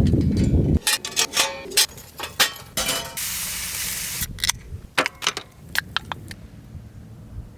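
A run of light metallic clinks and clatters with short ringing tones, broken by a hiss of about a second near the middle. A low rumble like wind on the microphone cuts off about a second in.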